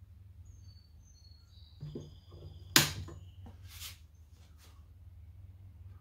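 Flush cutters snipping glued wooden toothpicks off flush with a pine drawer side. There is a sharp snap nearly three seconds in, a second crack about a second later and a fainter one after it, over a low steady hum.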